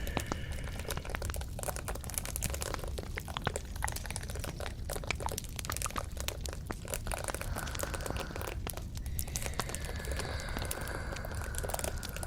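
Close-miked crinkling and crackling from something being handled, a dense run of small irregular clicks.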